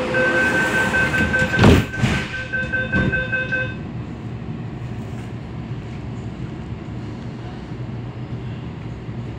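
MTR A-Train door-closing warning: repeated high beeps for about three and a half seconds while the passenger doors slide shut, with a loud thud just under two seconds in and another knock about a second later. After the beeps stop, the stationary train hums steadily.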